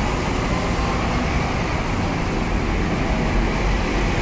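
Scania K230UB city bus's five-cylinder diesel engine running steadily close by, a low rumble with road noise that swells slightly near the end as the bus moves past.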